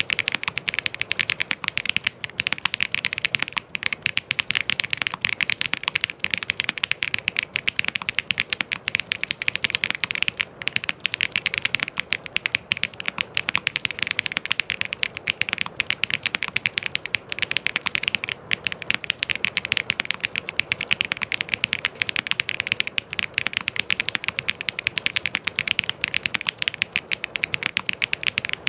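Fast, continuous typing on a mechanical keyboard, a dense stream of key clicks without pause.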